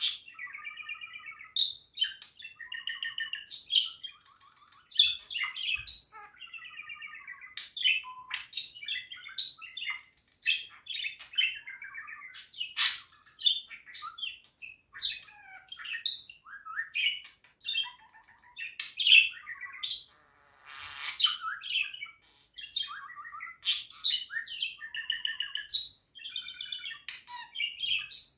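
Budgerigar warbling: a continuous, busy chatter of quick chirps, clicks and short wavering phrases, with a raspy burst about two-thirds of the way through.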